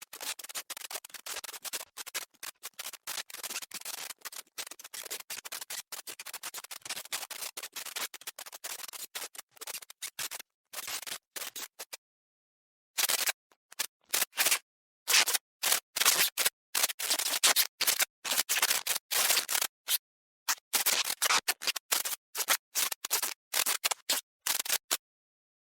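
Electric sparking and crackling: dense, irregular snapping for about twelve seconds, a brief pause, then crackling in on-and-off bursts until near the end.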